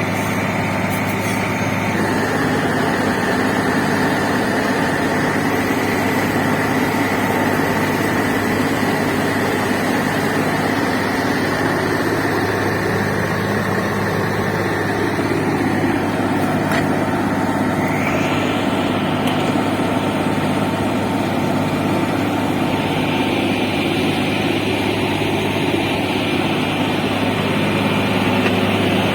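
Heavy-equipment diesel engines running steadily under load, with a deep hum and a higher whine that shifts in pitch now and then.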